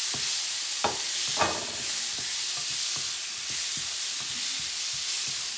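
Diced tomatoes, chillies and browned onions sizzling in oil in a nonstick frying pan while a wooden spatula stirs them, scraping and tapping the pan. Two louder knocks come about a second in.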